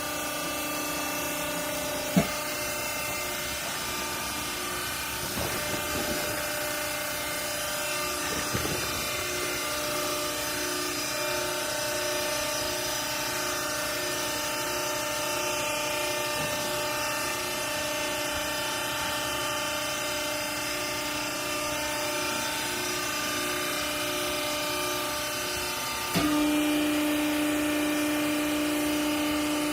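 Hydraulic clothing baler's electric motor and pump running with a steady, multi-toned hum. There is a sharp click about two seconds in. Near the end the sound steps up suddenly, louder and with a stronger low tone.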